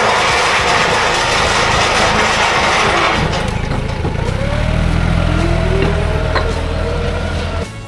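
A loud rushing hiss for about three seconds, then a heavy machine's engine running steadily at low revs, cutting off suddenly near the end.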